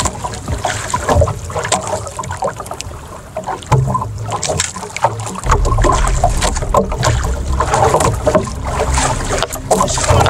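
Waves slapping and splashing against a small outrigger boat's hull and float, with wind rumbling on the microphone, heavier in the second half.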